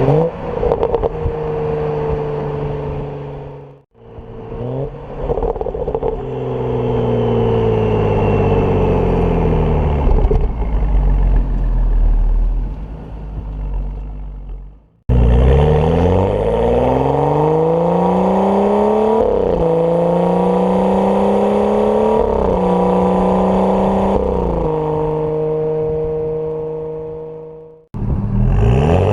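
Turbocharged N55 straight-six of a BMW 335i with a catless downpipe, accelerating through the gears: the engine note climbs steadily and drops back sharply at each upshift. In another stretch the revs fall slowly as the car comes off the throttle. The sound is cut abruptly twice.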